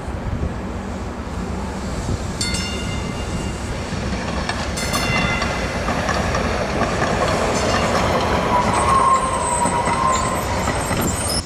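DART light rail train rolling past at close range, its steel wheels rumbling over the track joints and switches, growing louder as it nears. About two-thirds of the way through, the wheels squeal for a second or two.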